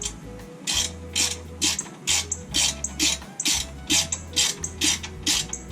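Hand ratchet wrench clicking in quick repeated strokes, about three to four a second, as it runs down the bumper bracket bolts on a truck chassis.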